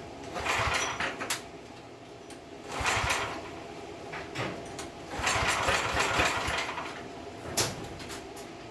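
Small gas engine on a pressure washer being pull-started three times on starting fluid, the recoil rope whirring and the engine turning over with each pull; the third pull is the longest. A sharp click follows near the end.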